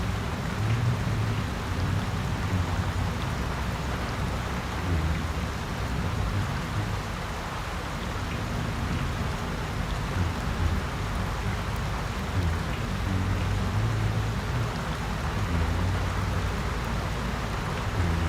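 Steady rain falling, with a low hum underneath that comes and goes every second or two.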